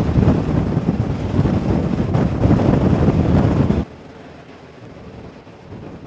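Strong wind buffeting the microphone on a ship's deck at sea: a loud, low rumbling rush that cuts off abruptly about four seconds in, leaving a quieter rush of wind and sea.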